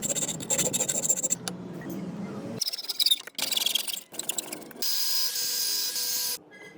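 Rasping and rubbing strokes on the steel of a forged axe head, heard in quick edited cuts; the sound changes abruptly about two and a half seconds in and again near five seconds.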